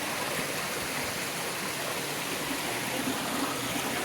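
Steady rushing of a waterfall, the water pouring down without a break.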